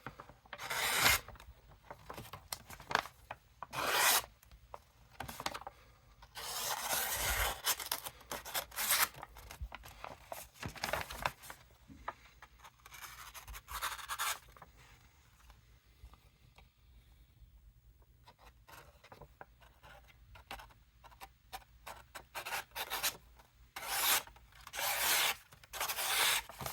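A freshly sharpened 14C28N folding-knife blade slicing through a paper menu in repeated cuts, each a short scraping hiss of paper parting, with paper rustling between them. The cuts come in irregular strokes, with a quieter pause in the middle and a few more strokes near the end.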